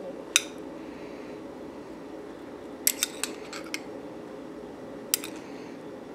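A metal spoon clinking against a small glass bowl while scooping chopped tomatoes: one clink, then a quick cluster of clinks about halfway through, and one more near the end, over a low steady hum.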